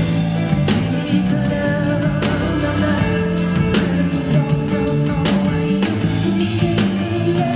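Live rock band music: a bass line moving under held chords, with sharp drum hits about every second and a half.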